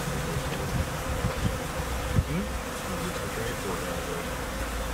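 A honeybee swarm buzzing: a steady drone with single bees flying close past, their pitch wavering up and down. A few low thumps of handling, the loudest about two seconds in.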